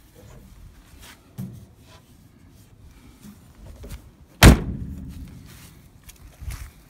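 The steel cab door of a 1966 Ford Econoline pickup slammed shut once, about two-thirds of the way in, its sound trailing off over a second. A lighter thump comes a little over a second in.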